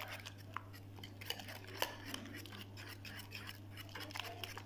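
Wire whisk beating a mix of eggs and grated courgette in a glazed earthenware bowl, its wires clicking against the bowl in quick, irregular strokes.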